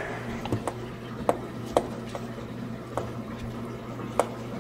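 Light clinks and knocks of rusty steel clutch control parts being handled on a metal workbench: about half a dozen short sharp ticks over a steady low hum.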